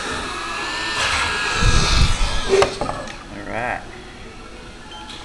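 Micro FPV racing quadcopter's motors whining, rising slightly in pitch, then a dull thump and a sharp click as the quad comes down about two seconds in, after which the whine dies away.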